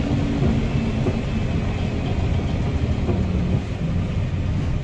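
Guy Arab III bus's diesel engine running with a steady low rumble, with a faint high whistle over it.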